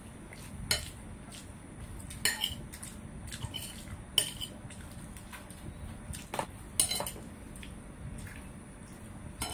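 Cutlery clinking and scraping against a plate while someone eats, a handful of sharp clinks a second or two apart, with a pair close together about two-thirds of the way in.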